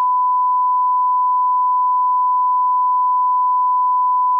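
A steady, unbroken 1 kHz sine test tone, the reference tone that goes with SMPTE colour bars as an off-air test signal.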